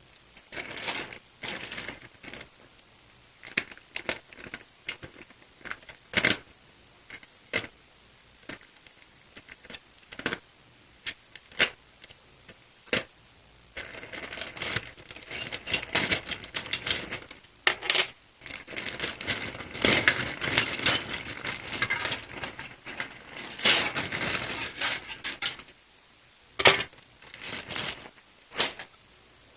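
Plastic bag of model-kit parts being opened and handled: crinkling plastic with scattered clicks and knocks of hard plastic parts, the rustling denser through the second half.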